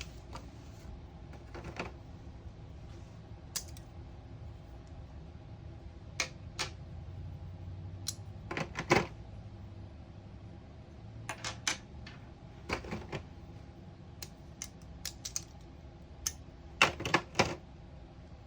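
Taps triggering a Snap Circuits sound-IC circuit's machine-gun effect: scattered sharp clicks and short bursts of rapid clicking. The loudest burst comes near the end.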